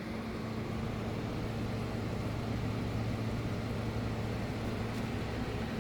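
Midea 12,000 BTU U-shaped window air conditioner running: a steady low hum with an even hiss of air from the fan.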